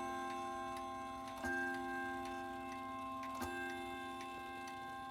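Ridgeway wall clock's strike hammer hitting a single chime rod slowly, about once every two seconds, each strike ringing on into the next, while the clock's movement ticks underneath. The strike is working again after a sticky hammer, though the owner says the rod is supposed to sound a little deeper.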